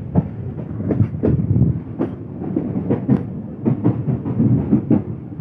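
A passenger train running, heard from aboard a coach: a steady rumble with frequent irregular knocks and clatter as the wheels pass over rail joints and the junction's points while the train turns off the main line.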